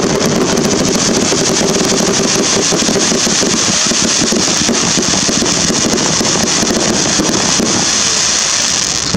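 Fireworks going off in a dense, continuous crackle of many rapid pops, dipping slightly near the end.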